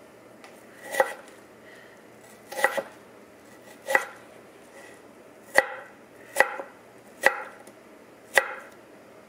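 Kitchen knife chopping peeled potatoes on a wooden cutting board: seven separate knocks of the blade going through the potato onto the board, slow at first and coming closer together in the second half.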